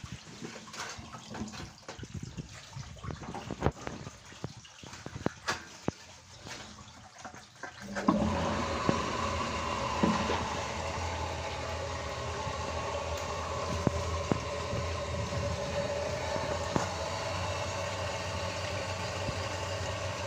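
Water dripping and trickling in a well shaft, then about eight seconds in a water pump switches on and runs steadily with a constant hum and rush.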